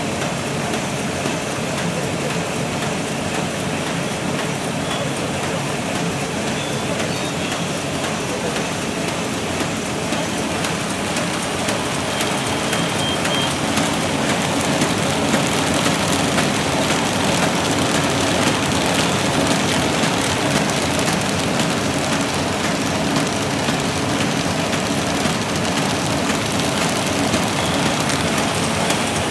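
Zono KM330 paper bag machine running steadily, a dense, even mechanical noise with a low hum as the kraft paper web feeds over its rollers. It gets a little louder about halfway through.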